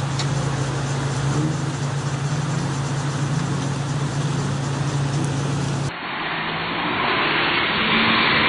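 SUV engine running steadily as the vehicle fords a fast-flowing river, with rushing water around it. About six seconds in, the sound cuts abruptly to a louder, hissing noise.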